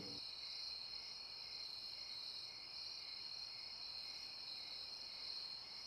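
Faint, steady chirping of crickets, a night-time outdoor ambience.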